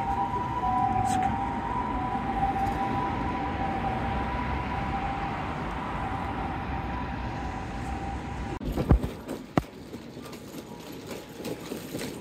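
Steady running noise of a vehicle with a two-note whine held level over it, cut off about eight and a half seconds in. A few sharp clicks and knocks follow over a quieter background.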